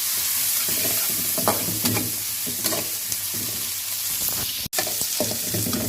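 Shallots, curry leaves, pandan and whole spices frying in plenty of hot oil with a steady sizzle, stirred with short irregular scrapes and knocks against the pan. The shallots are browning. The sound drops out for an instant about three-quarters of the way through.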